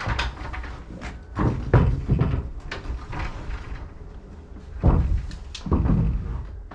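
A few irregular heavy knocks and thumps of wood against wood, as timber framing is shifted and knocked into place. The loudest thumps come about a second and a half in and again about five seconds in.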